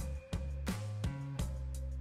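Background music with a steady beat of about three hits a second over deep bass notes.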